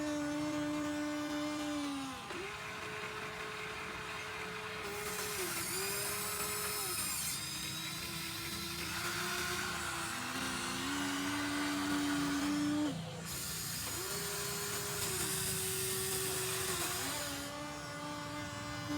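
Electric motors and gearboxes of a Huina 1593 RC excavator whining, the pitch stepping up and down every couple of seconds as different movements start and stop, with bursts of higher hiss now and then.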